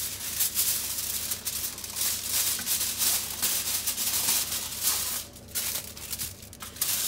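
Aluminium foil being handled, crinkling and rustling unevenly with a few brief pauses.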